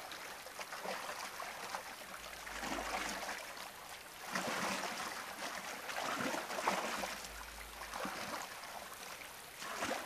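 River water splashing and churning around a wildebeest struggling in the flooded river, swelling and easing several times and loudest about halfway through.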